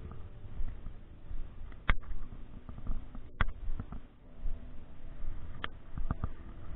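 Close handling noise from hands working fishing tackle (a soft plastic lure and pliers) right by the microphone: a low rustle and rub throughout, broken by a few sharp clicks, the last two in quick succession near the end.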